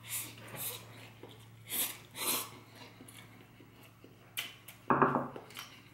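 A person slurping instant fried noodles off chopsticks: several short, hissy slurps with chewing between them, and a louder, fuller sound near the end.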